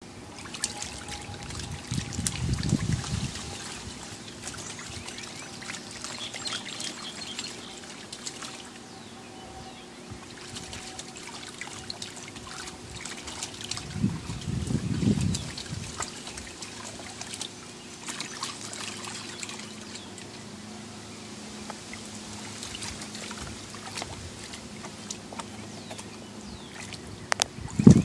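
Shallow water in a plastic kiddie pool sloshing and trickling as a dog wades through it, with irregular small splashes and a few louder swells.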